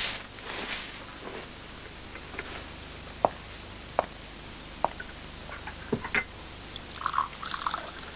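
Small household objects handled at a kitchen counter: a brief rustle, then a few separate sharp clicks and knocks, with a cluster of small clinks near the end, over steady hum and tape hiss.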